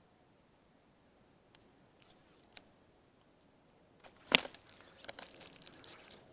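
Handling of a baitcasting rod and reel. A couple of faint ticks, then one sharp click about four seconds in, followed by a run of small clicks and rustling as the reel and lure are worked by hand.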